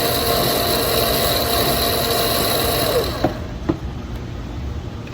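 Electric drive motor of a child's battery-powered ride-on toy car running steadily with a whine, left on to run the batteries down. About three seconds in its pitch falls and it stops, followed by two sharp clicks.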